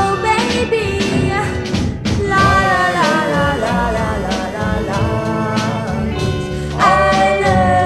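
Instrumental break of a soul-ballad cover played from a vinyl record: a lead melody with sliding, bending notes over bass, guitar and drums.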